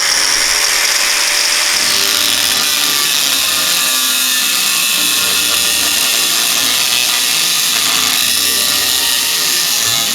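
An angle grinder cutting through thick metal plate, giving a loud, steady, high-pitched grinding hiss.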